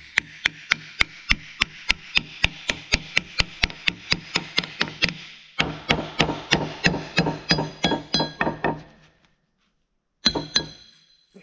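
Ratchet wrench clicking steadily, about four clicks a second, backing out the crankcase cover bolts of a Bendix Tu-Flo 500 air compressor. It pauses about halfway through, clicks on for about three seconds more, and a short ringing metallic clink follows near the end.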